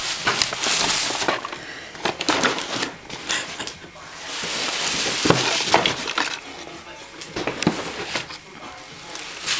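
Handling noise as packing is unwrapped: plastic wrapping and cardboard rustling and crinkling, with short knocks. There is a longer stretch of continuous rustling about halfway through.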